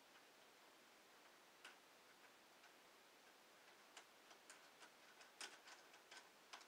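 Near silence broken by faint, irregular clicks of small plastic parts and screws from a ramp hardware pack being handled: a single click early, then a scattered run of clicks in the last few seconds.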